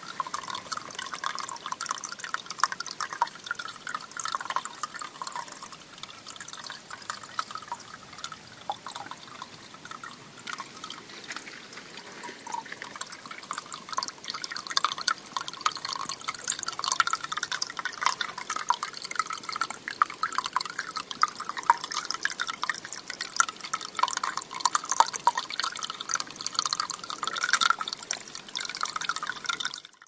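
Water of the Lenne river's spring trickling and dripping in a continuous fine patter, a little louder in the second half.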